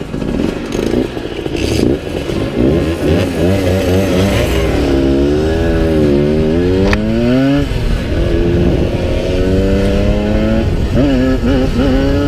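Simson two-stroke moped engine revving hard as it pulls away and accelerates, its pitch rising and falling several times with a sudden drop about halfway through.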